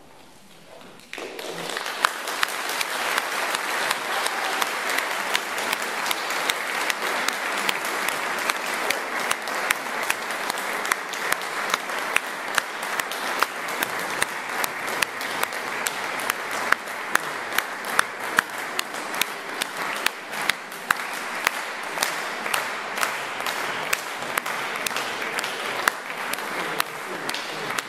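Audience applause, starting about a second in, dense and steady, fading away near the end.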